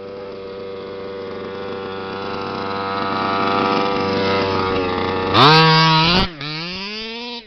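HPI Baja 5T 1/5-scale RC truck's two-stroke petrol engine idling steadily and getting louder; a little past five seconds in it revs hard for under a second, drops back, then revs up again in a rising whine.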